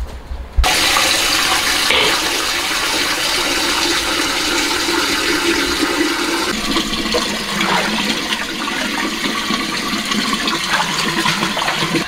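Tap water running hard into a large stainless-steel pot while meat is rinsed in it by hand. The water starts suddenly about half a second in and runs steadily.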